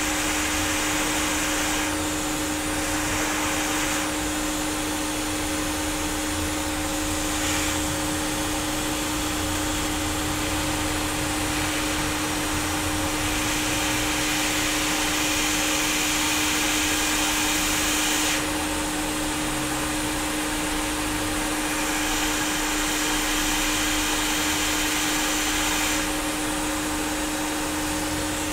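Hot air rework station blowing a steady airy hiss over a laptop motherboard, with a steady hum underneath, while a component is soldered. The hiss grows and fades several times as the airflow shifts.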